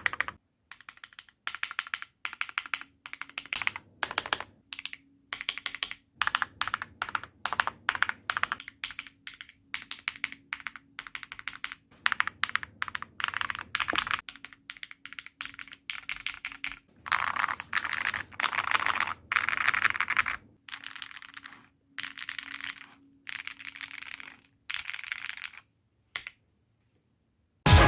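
Typing on a Kbd67 Lite mechanical keyboard fitted with lubed, Cherry-topped SP-Star Meteor White switches: quick runs of keystroke clacks in bursts of a second or two, separated by short pauses. The typing stops about a second and a half before the end.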